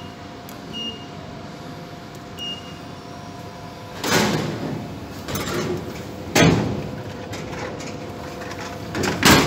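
Vending machine dispensing a purchase over its faint steady hum: a few short electronic beeps, then a series of loud clunks and sliding rattles, the loudest near the end, as the item is delivered and the door slides.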